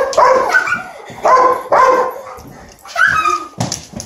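Doodle dog barking, several short excited barks spaced about a second apart during play.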